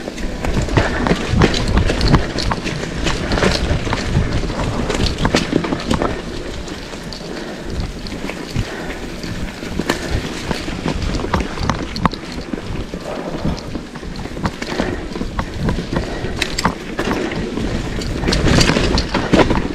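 Mountain bike riding over a dirt trail: wind buffeting the microphone with a steady rumble, and constant rattles and knocks from the bike over rough ground. It is louder in the first few seconds and again near the end.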